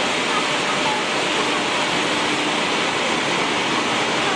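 Grass pellet machine running, a steady, even rushing noise with no pauses or knocks.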